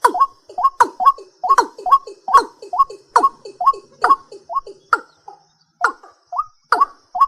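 A night bird calling in a quick rhythmic series of short notes, about two to three a second, with a brief pause about five seconds in.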